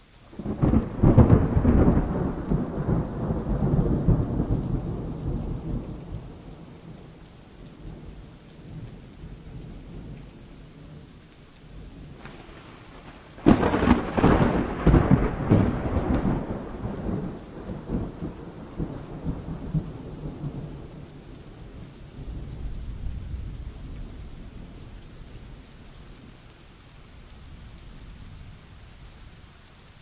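Steady rain with rolling thunder. A clap about half a second in rumbles away over several seconds, a sharper crack comes about thirteen seconds in and rolls on for several seconds, and a fainter low rumble follows later.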